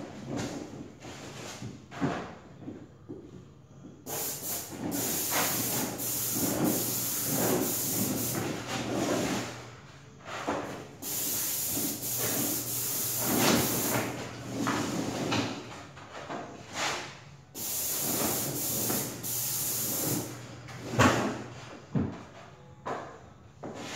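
Airless paint sprayer spraying in three long bursts of steady hiss, each several seconds long, with a low hum under the spray. Knocks and handling noises fall between the bursts.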